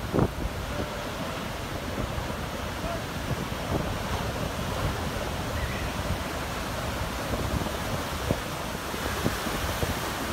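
Heavy ocean surf breaking and washing in white water, with strong wind buffeting the microphone in gusts.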